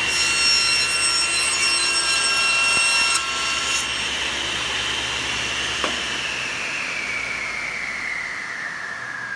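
SawStop table saw running while its blade takes a shallow trial pass across the face of a wooden rail, trimming the back of the tongue, for about the first three seconds. Then the saw is switched off with a click, and the blade's whine falls steadily in pitch as it spins down.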